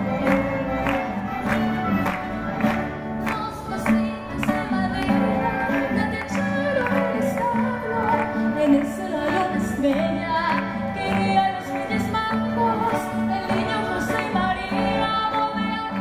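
A youth string orchestra playing live with a steady beat. A girl sings the melody through a microphone over it, coming in partway through.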